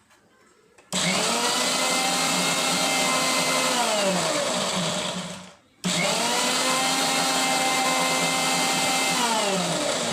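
Sansui Pro mixer grinder motor run in two short bursts. Each time it comes up to speed at once, whirs steadily, then slows with a falling pitch as it is switched off and coasts down.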